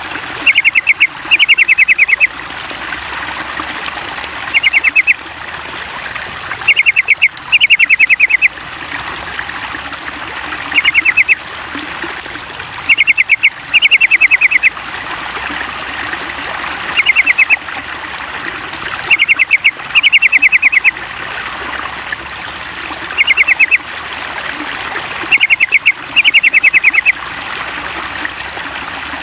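Yellow-vented bulbul (trucukan) song played as a lure: quick runs of sharp chattering notes, alternately one short run and a short run followed by a longer one, repeating every two to three seconds over a steady trickle of running water.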